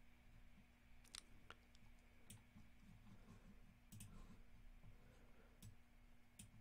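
Faint computer mouse clicks, about half a dozen scattered irregularly, over a quiet steady hum of room tone.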